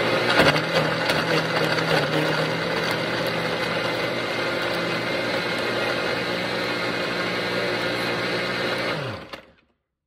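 Countertop blender running steadily at high speed, blending a smoothie with ice, with a short rattle about half a second in. Near the end it is switched off and the motor winds down, falling in pitch, to a stop.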